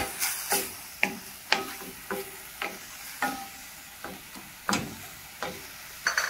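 Minced chicken and chopped onion sizzling in hot oil in a pan while being stirred. A spatula scrapes and knocks against the pan every half second or so over the steady hiss.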